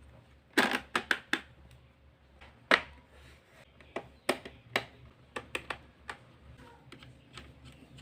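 Irregular sharp plastic clicks and taps, in small clusters, as the Acer Aspire 3 laptop's bottom access cover is put back and pressed shut.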